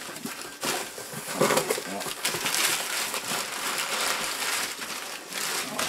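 Crumpled newspaper packing rustling and crackling as it is pulled out of a cardboard shipping box by hand, in irregular crunchy handfuls.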